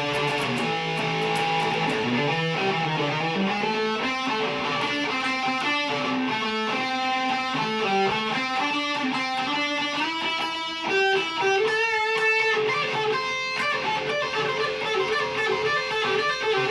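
Mexican-made Fender Stratocaster electric guitar with Lace Sensor pickups, played as a tone demo through an amp. It plays melodic single-note phrases that climb in pitch over the first several seconds, then settle into held notes.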